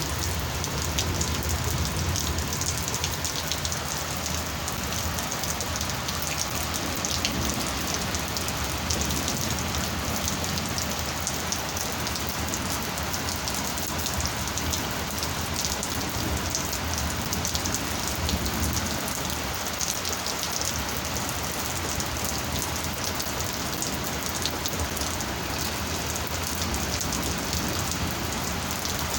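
Heavy rain falling steadily, with a dense patter of drops striking surfaces.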